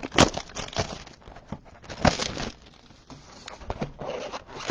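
A cardboard trading-card box and its plastic wrap being opened by hand: crinkling and tearing rustles with scattered sharp clicks and taps.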